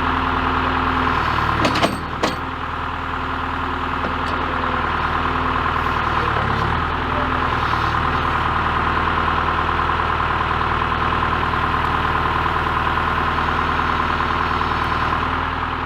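Backhoe engine running steadily under work, with a couple of sharp metallic clanks about two seconds in.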